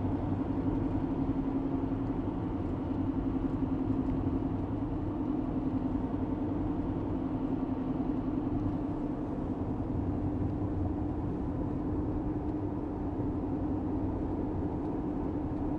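A car driving at a steady speed, heard from inside the cabin: a constant, even drone of engine and road noise.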